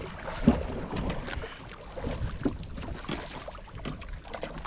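Sea water sloshing and splashing against the hull of a small outrigger boat, with a few short knocks, the strongest about half a second in.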